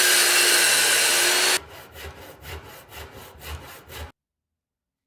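A woodworking power tool runs loudly and steadily, with a steady whine, and cuts off about a second and a half in. Rhythmic back-and-forth strokes on wood follow, about three a second, like hand sawing or sanding, and stop abruptly about four seconds in.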